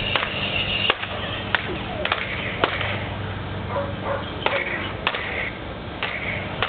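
Plastic toy lightsaber blades clacking together, about seven sharp, irregularly spaced hits.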